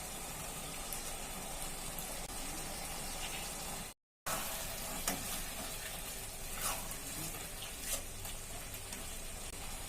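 Chilli chicken sizzling steadily in the pan as it finishes cooking, broken by a brief dropout about four seconds in, with a few light taps after it.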